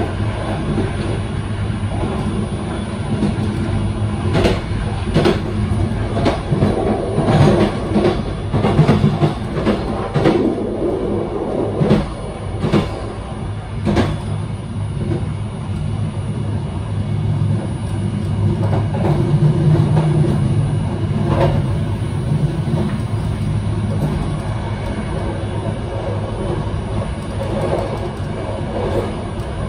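Train running, heard from inside the rear of the train: a steady rumble of wheels on rail. From about four to fourteen seconds in there is a run of sharp, irregular clacks as the wheels cross the station's switches, then the run goes smoother.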